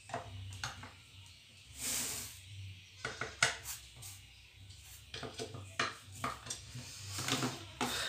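Irregular light metal clicks and scraping of a screwdriver working the cover bolts on a ceiling fan motor housing, with the housing handled on the table; one longer scrape about two seconds in.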